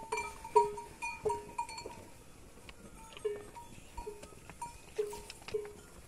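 Bells on cattle clanking as the herd moves, a string of short ringing notes at two pitches, about two or three a second, thinning out in the middle.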